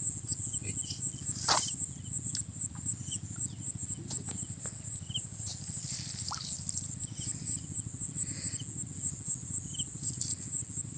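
Insects chirping in a steady high-pitched pulse, about four pulses a second.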